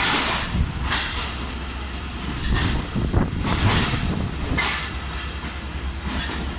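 Pakistan Railways passenger coaches rolling past close by. The wheels clatter over the rail joints in irregular bursts above a steady low rumble.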